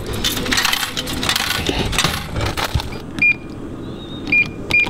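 Vending machine dispensing: its spiral coil turns and a bagged pastry drops into the tray, with about three seconds of rattling clatter, followed by three short electronic beeps near the end.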